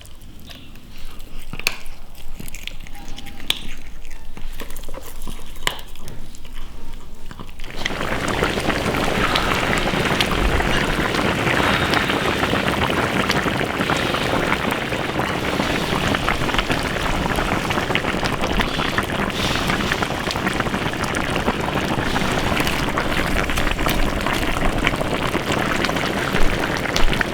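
Fish stew boiling hard in a wok: a dense, steady bubbling that starts abruptly about eight seconds in, after a quieter stretch with a few scattered small clicks.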